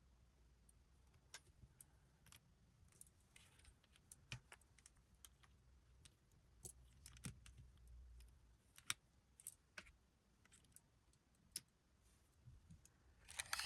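Near silence broken by faint, scattered small clicks and taps, about a dozen spread irregularly over the stretch.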